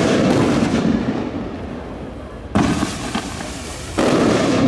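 Fireworks display shells bursting: three sudden loud booms, at the start, about two and a half seconds in and about four seconds in, each followed by a crackling, rumbling tail.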